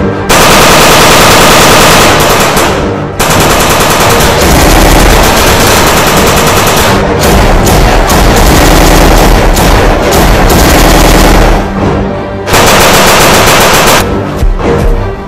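Dubbed-in automatic gunfire sound effects: long runs of rapid machine-gun fire, very loud, broken by short pauses about three seconds in and again near the end, with music underneath.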